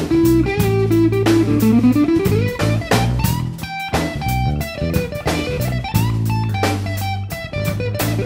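Background music: guitar-led blues with drums keeping a steady beat.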